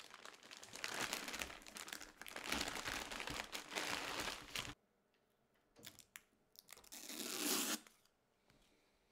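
Clear plastic packaging bag crinkling and rustling as a boxed hot-air rework station is lifted out of its foam insert and unwrapped. The rustling goes on for about four and a half seconds, stops, and comes again briefly near the end.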